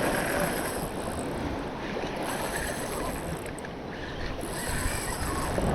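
Wind buffeting the microphone over waves washing against the jetty rocks, with a faint high whine that comes and goes three times.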